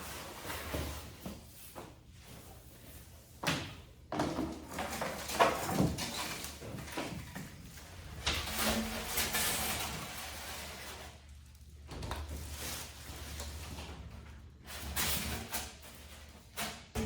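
Cardboard box and packing material being handled as a large mirror is unpacked: irregular rustling and scraping, with a few sharp thumps and knocks.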